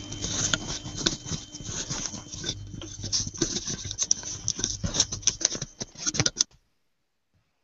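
Dense, irregular clicking and crackling with a faint steady hum underneath, coming over a video-call audio line; it cuts off suddenly about six and a half seconds in.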